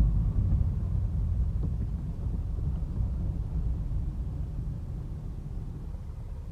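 A low, steady rumble, slowly getting quieter.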